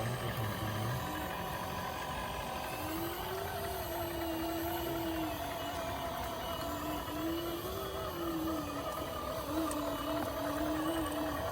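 Small electric motor of a radio-controlled scale off-road truck whining under load, its pitch rising and falling several times as the load changes.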